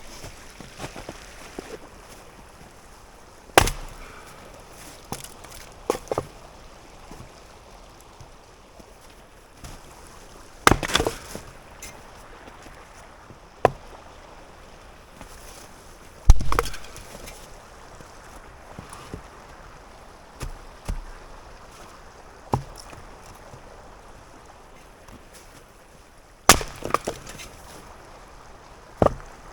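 Firewood being chopped: sharp woody knocks and cracks, about seven of them at uneven gaps of a few seconds. A steady trickling stream runs underneath.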